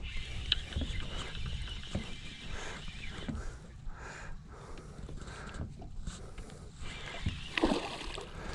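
Spinning reel, an Okuma Epixor, being wound as a hooked tigerfish is played in, with a splash near the end as the fish thrashes at the surface.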